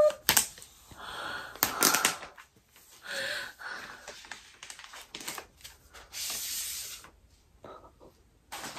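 Packaging being handled as a new laptop is unwrapped: plastic wrap and a paper protective sheet rustling and crinkling as they are pulled off, in short scattered rustles and clicks with one longer hiss about six seconds in.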